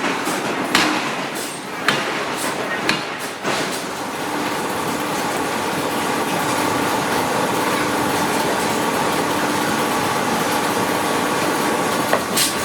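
Forging machinery: a few sharp metal blows in the first three seconds or so, then a steady mechanical running noise with a faint held whine.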